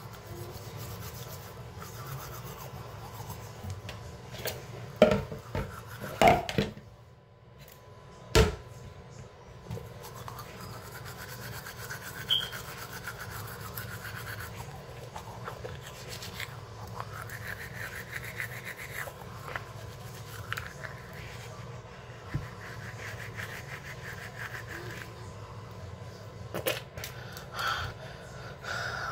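Manual toothbrush scrubbing teeth, a steady rasping close to the microphone, with a few sharp knocks about five to eight seconds in.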